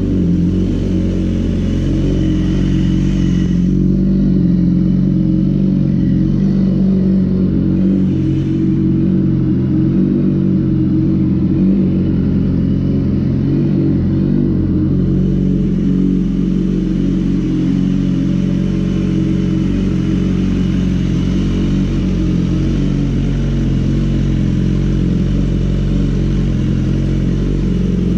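BMW S1000RR inline-four engine running steadily at idle through a full Akrapovic titanium exhaust, loud.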